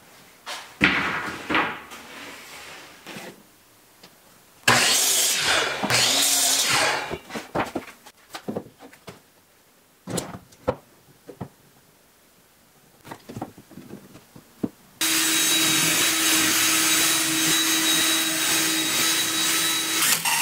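Wooden boards and clamps knocking and clattering as they are handled on a wooden workbench. About three-quarters of the way in, a cordless drill starts and runs steadily for about five seconds.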